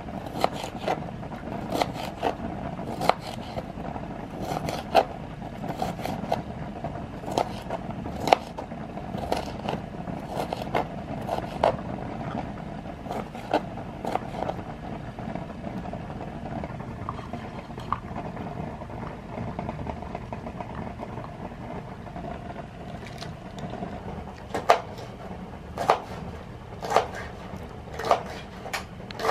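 Kitchen knife chopping vegetables, cucumber among them, on a plastic cutting board: sharp knocks of the blade on the board about once a second, thinning out for several seconds in the middle and coming back regularly near the end, over a steady low hum.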